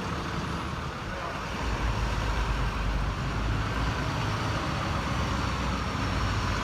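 Heavy truck engine running amid road traffic noise, its low rumble growing louder about two seconds in and holding steady.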